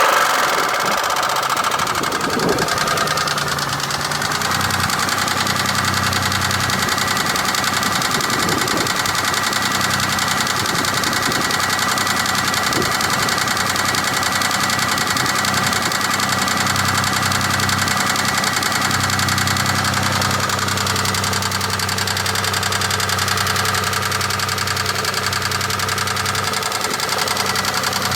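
2003 Chevy Impala's 3400 V6 engine running with a steady, rapid knock, which the owner takes for a pushrod knock.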